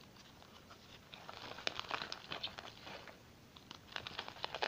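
Faint, sticky crackling and clicking of homemade glue slime being pulled and kneaded with fingers in a plastic tub, starting about a second in. The slime is still sticky as it thickens and comes away from the tub's sides.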